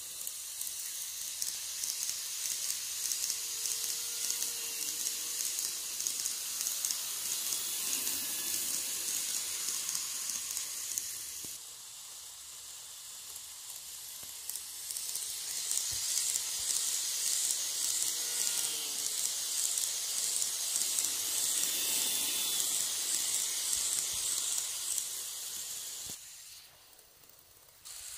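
N-gauge model train running on sectional track: a steady high hiss of small wheels and motor on the rails that swells as the train runs close. It drops abruptly about a third of the way in and dips low near the end.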